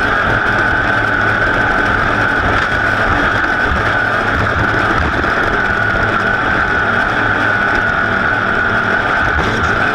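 Racing engine running hard at high revs: a steady high-pitched note that sags slightly partway through and picks up again near the end.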